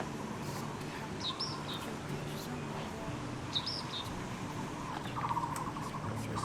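Small bird chirping twice: brief, high chirps a couple of seconds apart over a low steady background, with a short buzzing rattle near the end.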